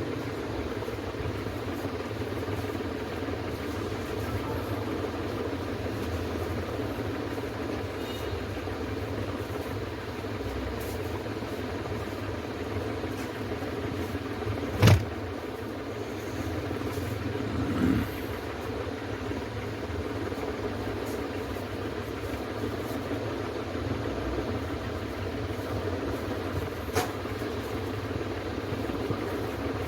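Steady low mechanical hum. A sharp click comes about halfway, a softer knock a few seconds later and a faint click near the end.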